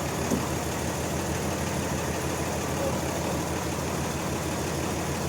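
Sawmill machinery running steadily with an even, low engine-like hum, with a faint click about a third of a second in.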